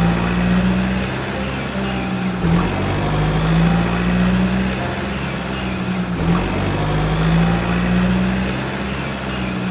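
Background music with sustained low notes that change pitch every few seconds.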